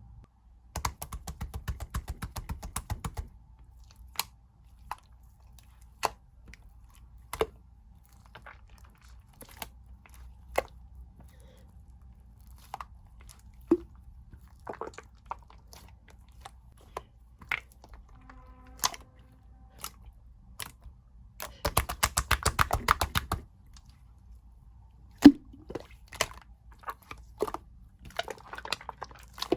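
White slime being worked by hand, giving off sharp wet clicks and pops as air pockets burst. It goes in two runs of rapid clicking, near the start and about two thirds of the way in, with single pops scattered between.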